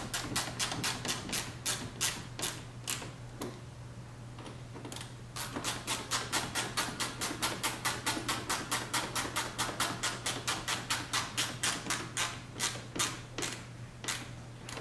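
Hand ratchet clicking rapidly as it drives the fender-liner screws back into a Corvette's front wheel well, about five clicks a second, pausing briefly about four seconds in and then carrying on.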